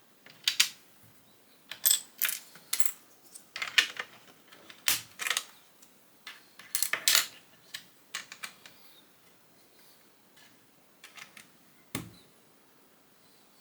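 Plastic Lego bricks clicking and clattering as they are handled and pressed together, in irregular clusters of sharp clicks, with a duller knock near the end.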